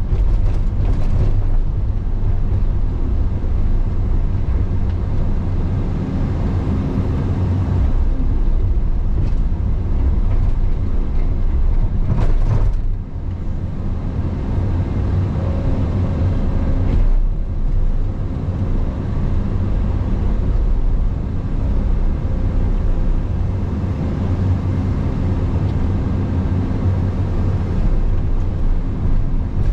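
Caterpillar 335 Next Gen excavator's diesel engine running steadily as the machine works, with a few brief clatters about a third and halfway through.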